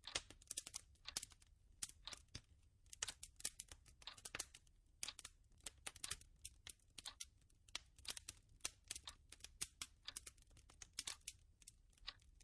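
Faint, irregular crackling clicks, several each second, with no steady tone underneath.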